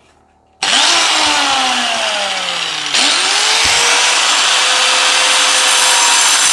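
Angle grinder starting up and cutting into a wall along a marked outline. It comes in suddenly about half a second in, its pitch sinks for a couple of seconds as the disc bites under load, then rises again near the three-second mark and holds steady as it cuts.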